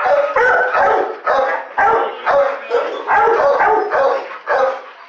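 Dog barking repeatedly, about two barks a second.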